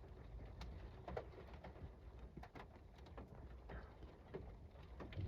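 Faint, irregular taps of raindrops hitting a window, over a low steady rumble.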